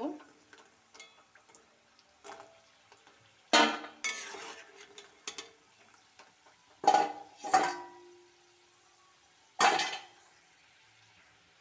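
Metal slotted spoon knocking and scraping against a metal kadai as fried goja are scooped out of hot oil to drain: about five sharp clanks a second or more apart, some ringing briefly, with faint sizzling of the oil between them.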